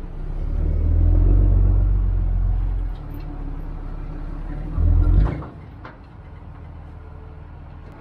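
Low rumble of a pickup's engine and drivetrain pulling a loaded gooseneck dump trailer of wood chips. The rumble swells in the first second, eases around 3 s, surges briefly about five seconds in, then drops to a quieter murmur.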